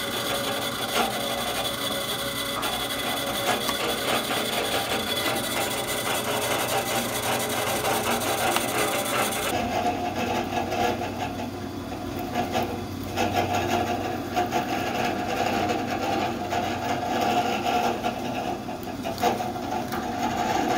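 Drill press running with a steady motor hum while its bit cuts holes through an aluminum plate into a sacrificial wood block beneath. About ten seconds in, the sound changes abruptly and the higher hiss drops away.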